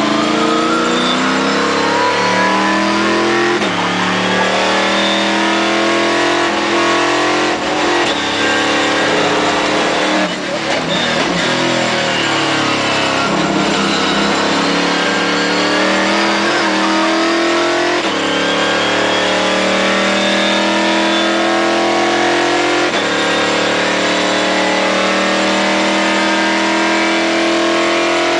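Stock Car Brasil race car's V8 engine at full throttle, heard from inside the cockpit. Its pitch climbs through each gear and drops back at every upshift, with a brief dip in level about ten seconds in.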